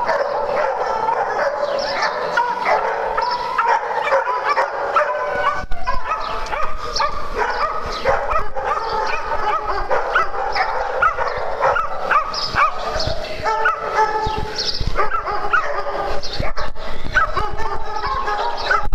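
Several small dogs barking and yipping over one another without a break.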